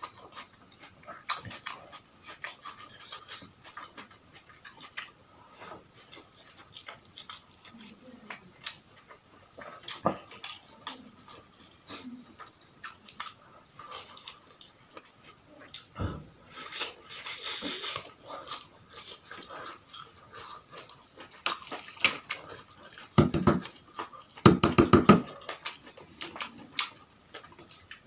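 Close-miked eating: chewing and smacking with many small wet clicks, and a run of loud rapid crunches about twenty-three seconds in.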